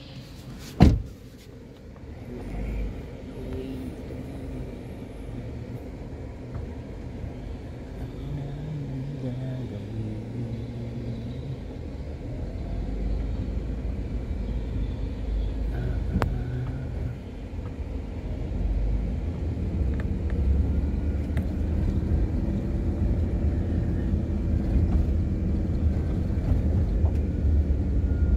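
A car door shuts with one sharp thump about a second in. Then the car's engine and road noise run as it drives off, heard from inside the cabin, the low rumble growing louder as it gathers speed.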